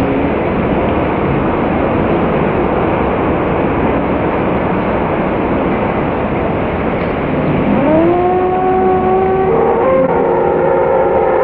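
Water rushing steadily down a log-flume chute. About eight seconds in, as the log tips over the drop, a long yell rises and holds, and more riders join in with held yells.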